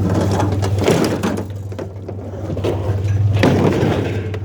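A discarded dishwasher being handled and tipped: irregular rattling, scraping and knocks, heaviest about three and a half seconds in, over a steady low engine hum.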